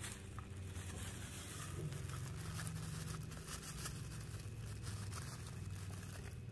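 Salt poured from a plastic bag onto ice cubes in a plastic basin: a faint patter of grains with the plastic bag crinkling, over a low steady hum.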